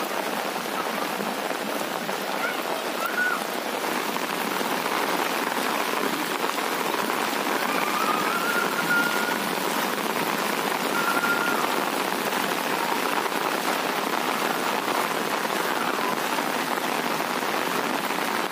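Heavy rain falling steadily on a paved lane and its standing floodwater, an even hiss. A few faint short whistle-like notes come through behind it.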